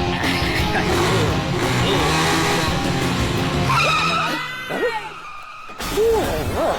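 Quad bike engine running hard and revving with tyre skidding, ending about four seconds in with a high squeal, after which the engine sound drops away.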